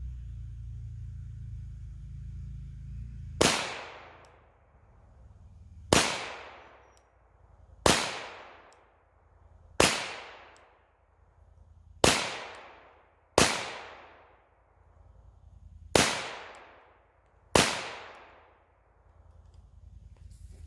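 Kimber Aegis Elite Custom .45 ACP pistol firing eight single shots at a slow, deliberate pace, roughly two seconds apart, each shot ringing out and dying away over about a second. A low rumble comes before the first shot.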